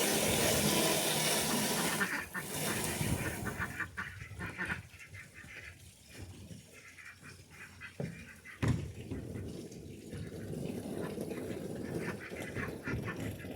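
Water pouring, which stops about two seconds in, then ducks quacking, with a single sharp knock a little past the middle.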